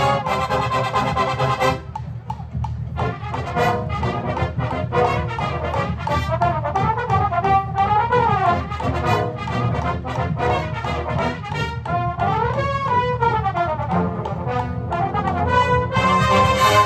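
A drum corps brass hornline playing a warm-up together. A loud held chord breaks off about two seconds in, then come phrases of notes rising and falling, and a loud sustained chord returns near the end.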